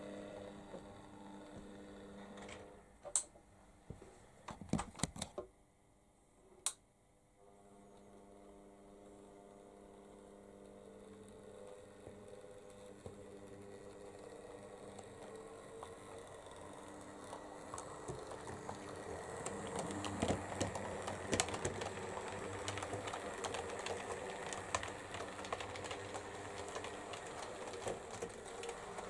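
OO gauge Oxford Rail GER N7 tank locomotive model running, its small electric motor whirring with rapid clicking from the wheels on the track. A few sharp clicks come early, then the running sound swells as the model draws near and stays loud to the end.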